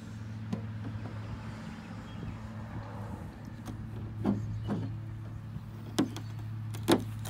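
Steady low hum of a running motor, with a few short knocks in the second half.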